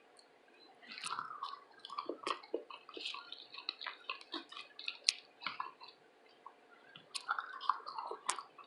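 Close-miked chewing of roasted red potatoes: soft, wet mouth clicks and smacks, with a short lull about six seconds in.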